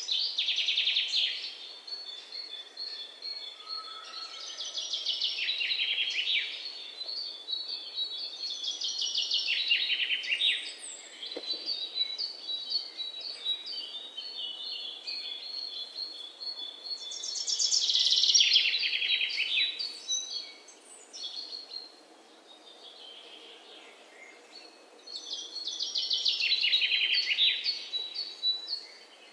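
Birds singing: a rapid trilled phrase that falls in pitch, repeated five times, with thinner chirping between the phrases.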